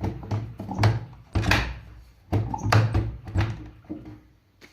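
Bosch washing machine door and its repaired handle being worked repeatedly: a series of plastic clunks and latch clicks about every half second to a second, dying away near the end. The door opens and latches again, a sign that the repaired handle works.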